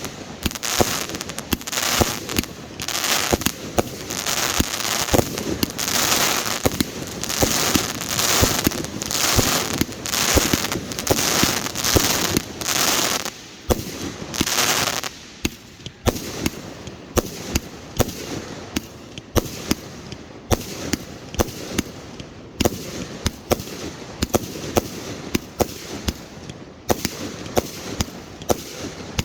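Fireworks display: a rapid run of aerial shell bursts with dense crackling for about the first half, thinning after that to separate, sharper bangs a second or so apart.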